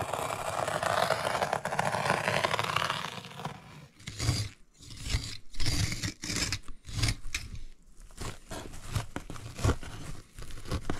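Thick chopped strand mat fiberglass being scored and torn by hand: a long rough scraping tear for about three and a half seconds, then a run of short, irregular tearing and crunching strokes.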